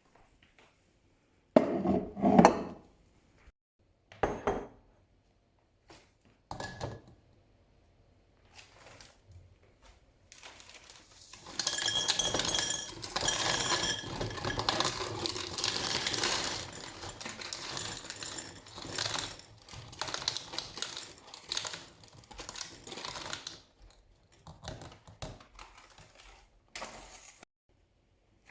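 Dishes and kitchen utensils being handled: a couple of loud knocks about two seconds in, scattered clicks, then a long stretch of busy clinking and clattering through the middle that thins out near the end.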